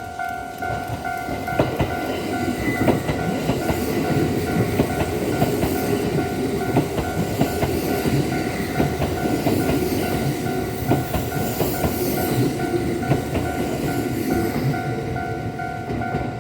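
Kintetsu 1026-series electric train running past over a level crossing, its wheels clacking over the rail joints, the run noise building about two seconds in and easing near the end. The crossing's warning bell rings on in a fast, even pulse over it.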